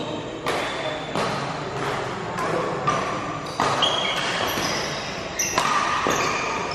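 Badminton rackets striking a shuttlecock in a fast doubles rally, sharp hits about once a second echoing in a large hall. Short squeaks of court shoes between the hits.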